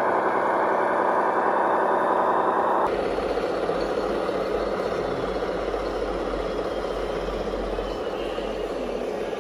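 Remote-control scale truck running, with a steady truck-engine idle sound. The sound changes abruptly about three seconds in, when a deep low hum comes in.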